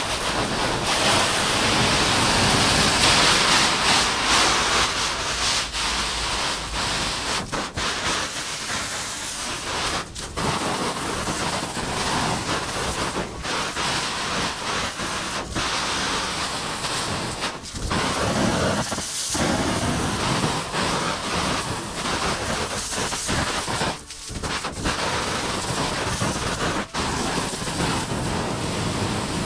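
Jet of water from a garden hose spraying onto the plastic film walls of a polytunnel, a steady hiss and patter with a few brief breaks as the spray is moved.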